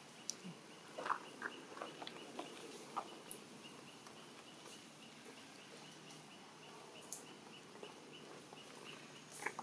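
Faint outdoor ambience: a soft, high chirp repeating about three times a second, with a few short faint clicks and squeaks in the first few seconds.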